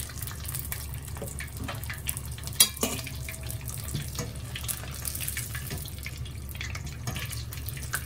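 Battered cod deep-frying in a pot of hot oil: continuous bubbling and crackling. One sharp knock about two and a half seconds in, as the wire skimmer strikes the pot.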